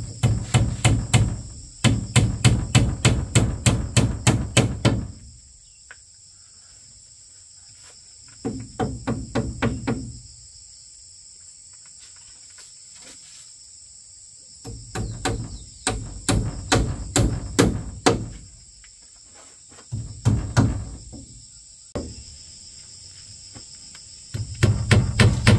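Hammering on wood in several runs of quick blows, about four a second, with short pauses between runs. A steady high insect drone runs underneath.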